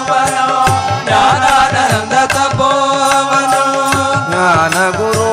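Carnatic-style devotional bhajan music: a melody of held notes with slides between them over a steady hand-drum beat.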